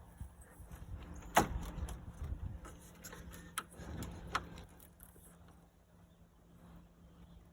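Sharp knocks and light clatter of car parts being handled while a radiator is worked out of the engine bay. The loudest knock comes about a second and a half in, with a few more around three and a half to four and a half seconds, then it goes quieter.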